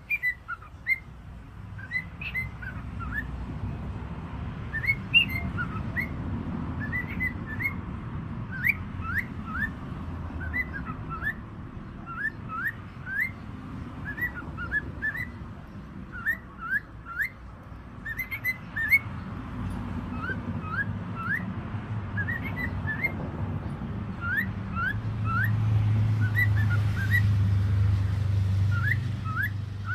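Cockatiels giving many short, rising whistled chirps, one after another, over a low rumble that grows louder over the last few seconds.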